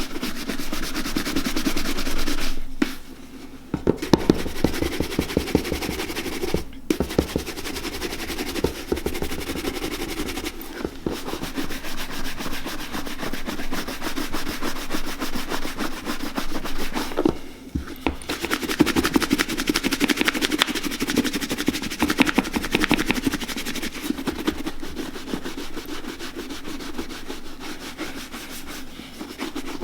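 Rapid back-and-forth buffing strokes on a leather boot, rubbing freshly applied boot cream into the oil-slick leather, with a few brief pauses.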